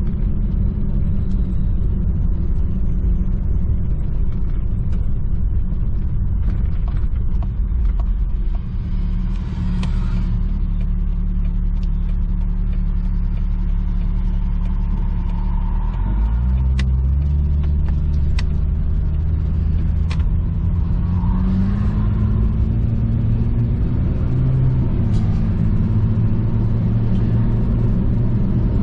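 1998 Jeep Cherokee XJ driving, heard from inside the cab: steady engine and road rumble, with the engine note rising as it accelerates from about halfway through. A few sharp clicks sound over it.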